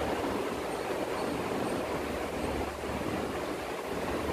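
Steady rushing background noise, even throughout with no distinct events.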